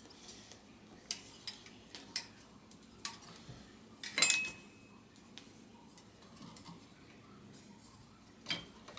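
Light metallic clicks and ticks as a left-hand-threaded Atom 440 pedal is worked off a vintage Schwinn crank arm with a pedal wrench, with one louder clink of metal on metal about four seconds in that rings briefly.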